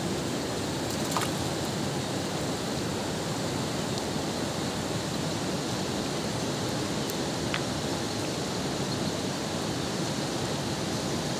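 Steady rushing of a fast-flowing river, an even wash of water noise.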